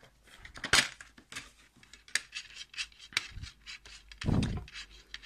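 Plastic DVD case being handled and opened: scattered clicks and rubbing of hard plastic, with fingers on the disc in the case. A louder dull thump comes a little over four seconds in.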